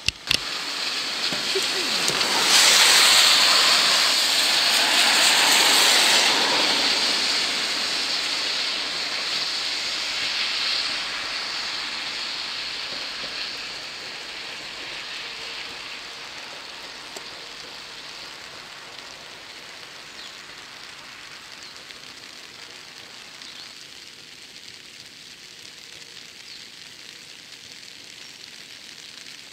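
Seibu 4000 series electric train passing close by, its wheels running on the rails. The noise swells to a loud peak a few seconds in, then fades away to a steady hiss of rain. Two sharp clicks come right at the start.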